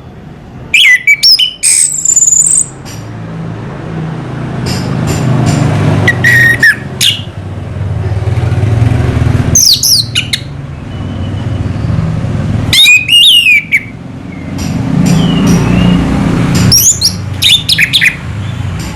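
Orange-headed thrush (anis merah) singing in short, loud whistled phrases with gliding pitch, about five of them spaced a few seconds apart. A low rumble swells and fades underneath between the phrases.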